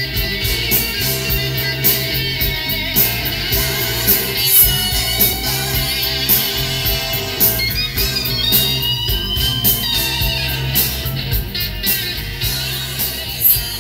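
Rock music with guitar over a steady drum beat, played back from a cassette on a Nakamichi BX-100 deck.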